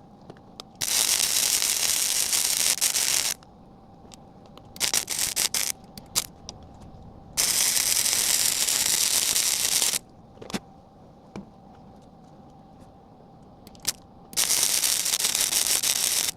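Arc welding with a small welder: the arc crackles and hisses steadily in runs of two to three seconds, with short sputtery starts and pauses between, as a bead is laid down.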